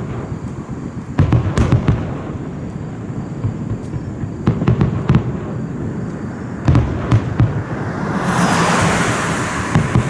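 Fireworks bursting: clusters of booms and pops, then a loud, sustained crackling hiss for the last two seconds or so.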